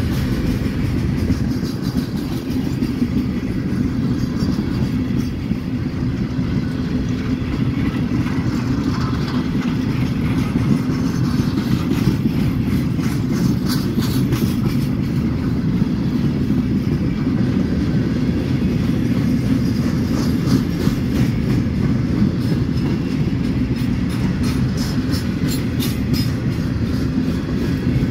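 Freight train of empty steel bulkhead flatcars rolling past close by: a steady low rumble of steel wheels on rail, with repeated clicks of the wheels over the rail joints.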